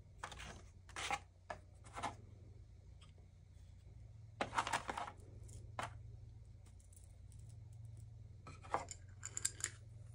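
Wooden golden bead material (thousand cubes, hundred squares and ten-bead bars) being lifted from a wooden tray and set down on a canvas rug: short knocks, scrapes and small rattles in several separate groups, the loudest about four and a half seconds in.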